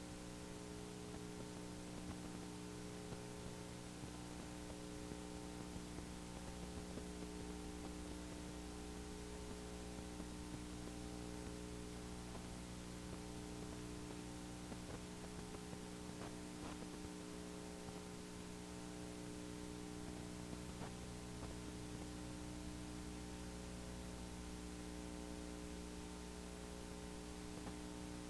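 Steady electrical mains hum, several low buzzing tones at once, over a faint hiss, with no speech.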